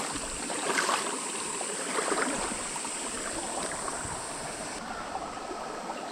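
Small creek water running steadily, with a few brief louder noises in the first two seconds or so.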